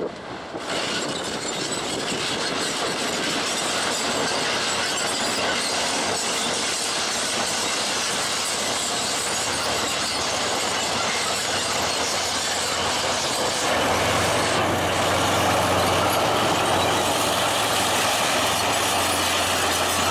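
ZSU-57-2 self-propelled anti-aircraft gun on the move, its V12 diesel engine running with the clatter of its steel tracks. The sound grows louder about two-thirds of the way through as the vehicle comes nearer.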